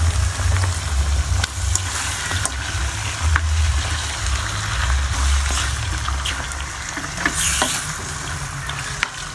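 Squid frying and sizzling in a wok with sautéed garlic and onion: a steady hiss over a constant low rumble, with a few sharp light clicks scattered through and a brief louder sizzle about seven seconds in.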